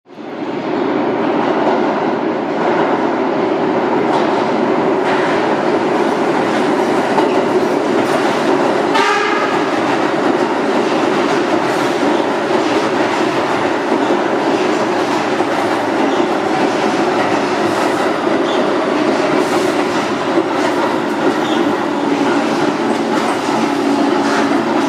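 An R46 subway train running along an underground station platform: a loud, steady rumble of wheels on rail and running gear, with a brief high-pitched tone about nine seconds in.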